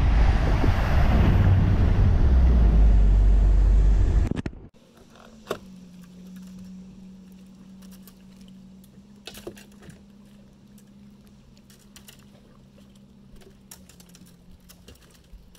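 A bass boat running at speed, with heavy wind rumble on the microphone. About four and a half seconds in it cuts to a low steady hum, with scattered light clicks and clatter as rods and reels are handled on the boat's deck.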